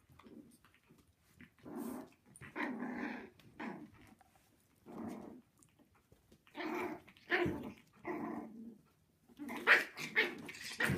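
Six-week-old Havanese puppies growling and yapping at each other while they play-fight, a string of short growls and yaps, loudest near the end.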